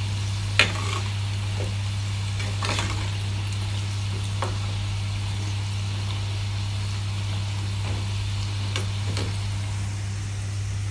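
Bang-bang hantak dough pieces sizzling as they deep-fry in a pot of hot oil, with a slotted spatula clicking against the pot a few times as they are stirred. A steady low hum runs underneath throughout.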